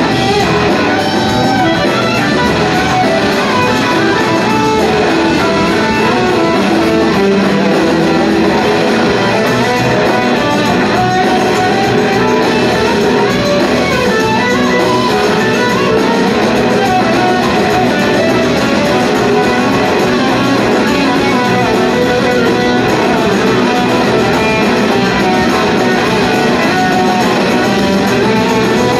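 Blues-rock band playing live and loud in a concert hall: electric guitars, with guitar lines that bend and glide in pitch, over drums.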